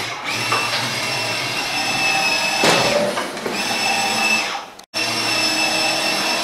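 Electric drive motor and gearbox of a 6-volt ride-on toy quad, whining steadily as it drives its plastic wheels over a wooden floor. There is a brief clatter about three seconds in. The motor cuts out for a moment about five seconds in, then starts again.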